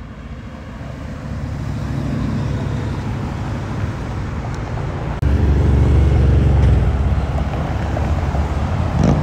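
Classic cars driving past, their engine and tyre noise growing louder as they come near. About five seconds in the sound jumps suddenly to a deep, heavy engine rumble as one car passes close by.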